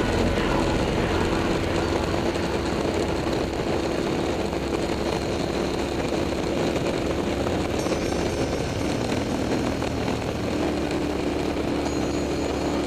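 KTM 990 SMT's V-twin engine with a LeoVince aftermarket exhaust running at a steady cruise, over a constant rush of wind and road noise. The engine note dips a little past halfway and picks up again near the end.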